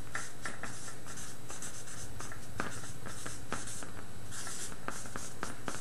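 Felt-tip marker writing on a paper flip-chart easel pad: a run of short, scratchy pen strokes as a word is written out letter by letter.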